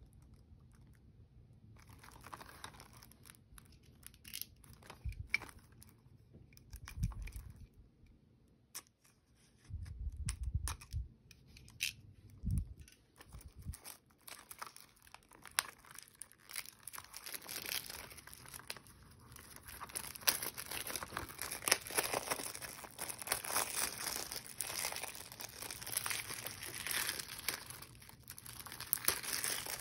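Plastic shrink-wrap being torn and peeled off a Blu-ray case, crinkling and crackling, with a few dull thumps in the first half. The crinkling grows denser and louder in the second half.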